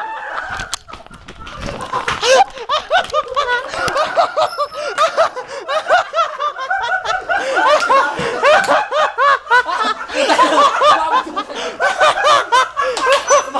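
Several people laughing hard together in continuous overlapping bursts, with a brief lull about a second in before the laughter swells again.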